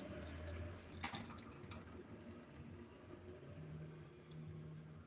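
Faint scratching and light clicking of small pet birds moving about, with a sharp click about a second in, over a low steady hum.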